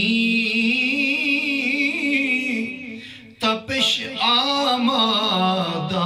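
A man's voice chanting devotional Urdu verse unaccompanied, holding long wavering notes; the phrase trails off a little past halfway and a new phrase starts soon after.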